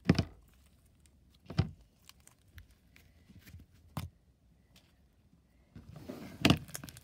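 Thick jelly slime being stretched, folded and squished by hand, crackly in texture: three sharp pops spread over the first four seconds, then a busier run of squishing and crackling near the end.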